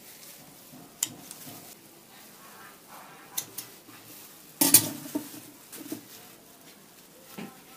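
Kitchen scissors snipping dried leftover roti into small pieces, heard as a few sharp clicks. About halfway through comes a louder clatter as the metal scissors are put down on the stone worktop, followed by a few lighter knocks.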